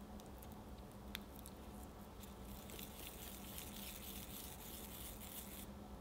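Hands rolling a soft ball of sweet white bean paste wrapped around a piece of peach between the palms: a soft, sticky rubbing and squishing that builds from about two seconds in and stops just before the end. A single light click about a second in.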